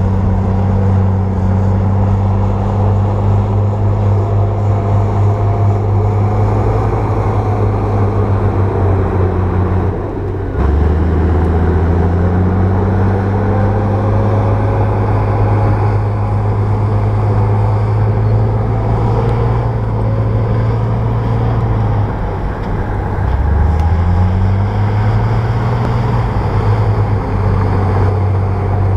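Bulldozer's diesel engine running steadily under work. Its pitch shifts briefly about ten seconds in, and dips then climbs back up around the two-thirds mark.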